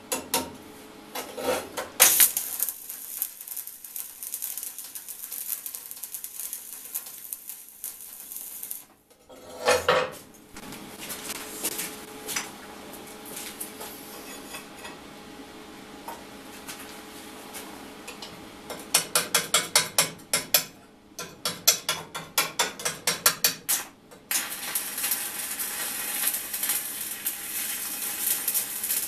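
Electric arc welding on steel, a steady crackling hiss that runs for several seconds, stops, and starts again near the end. In between come a single knock and a quick run of sharp metallic taps, about three a second.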